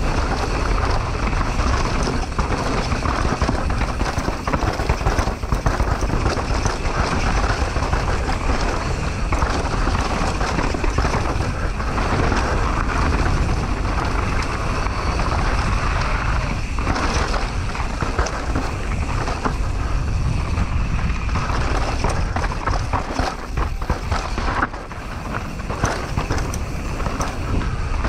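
Mountain bike descending fast on a dusty, stony trail: tyres crunching over dirt and loose rock, the bike rattling with constant small knocks, and wind rushing over the camera microphone.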